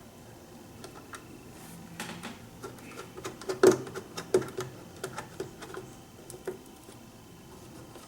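Irregular light clicks and taps of small parts and tools being handled on an opened electronics unit, with a sharper knock about three and a half seconds in.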